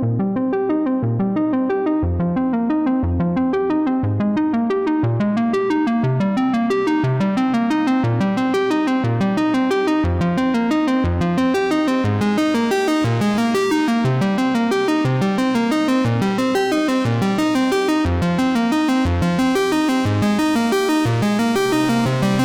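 Background music: a synthesizer and electric-piano track with a steady, repeating bass pattern.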